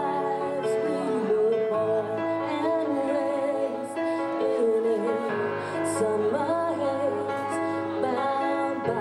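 A singer performing a song over instrumental accompaniment.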